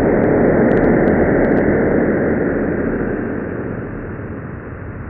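NASA's sonification of the Event Horizon Telescope image of the Sagittarius A* black hole: a dense, hissing drone that swells early and then fades somewhat after about three seconds. A radar-like sweep scans clockwise around the ring, and the volume follows the brightness of the ring.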